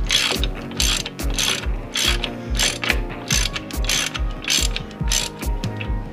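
Ratchet wrench clicking in short repeated strokes, about two a second, over background music with a steady beat.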